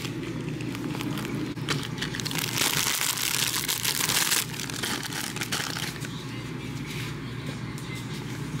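Plastic snack bags and candy wrappers crinkling as they are handled and set down close by, loudest about halfway through, over a steady low hum.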